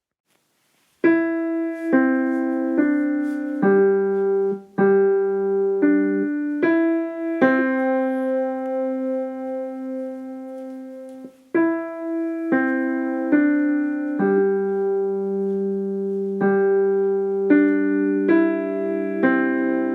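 A piano solo begins about a second in: slow single notes and chords, each struck and left ringing into the next.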